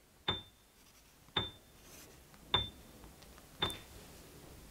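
A ticking sound effect marking a waiting pause: four sharp ticks, about one a second, each with a short high ping.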